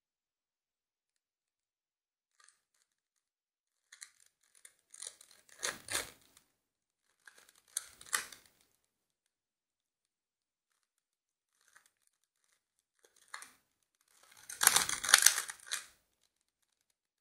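Plastic layers of a 3x3 Rubik's Cube being twisted by hand: short bursts of clicking and scraping with pauses between, the longest and loudest burst near the end.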